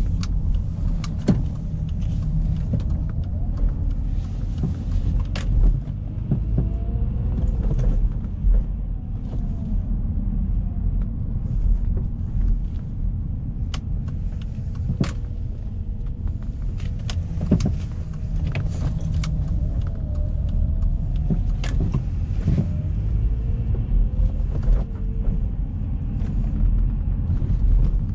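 Alfa Romeo 159 on the move: a steady low rumble of engine and road noise, with the engine note rising and falling as it pulls and eases off. Sharp clicks and knocks come every few seconds.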